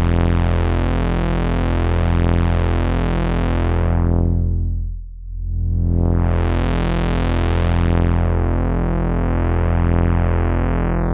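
Sustained synthesizer drone played through the CubuSynth Dual CS-20 VCF, an MS-20-style filter, with a slow pulsing. The filter cutoff is swept down until the sound is nearly dull about five seconds in, then swept back open. Near the end the cutoff falls again and a resonant whistle glides downward.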